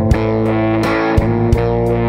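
Background rock music: distorted electric guitar chords over a steady beat.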